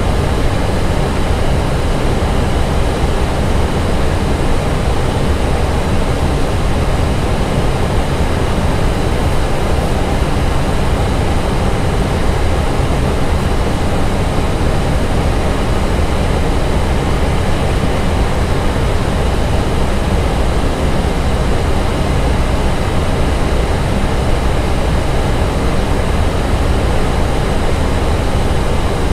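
Steady flight-deck noise of an Airbus A320 in flight: an even rush of airflow and ventilation with the engines' drone underneath, heaviest in the low end, with a faint high steady tone.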